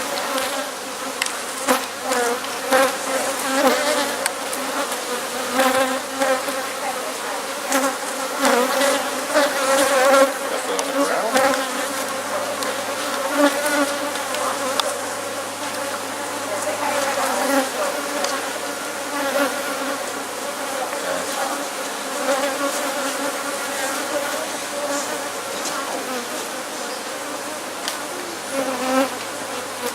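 Honeybee colony buzzing loudly and continuously, a dense, wavering drone of many bees stirred up as their hive is broken open, with scattered light clicks.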